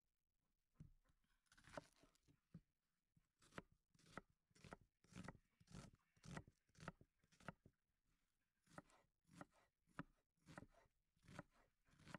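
Very faint footsteps crunching in snow, about two steps a second.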